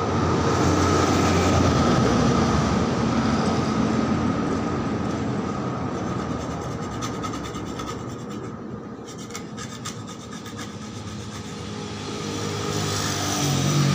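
Motor vehicle engine noise that is loud at first, fades, then swells again near the end. Faint scraping of a stick spreading epoxy putty on a metal exhaust pipe can be heard midway.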